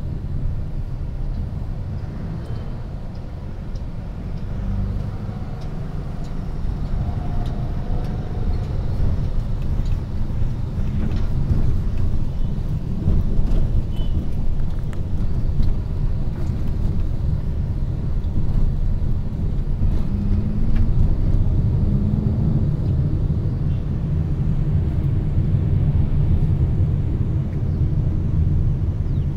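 Steady low rumble of a moving road vehicle's engine and tyres, heard from inside the vehicle.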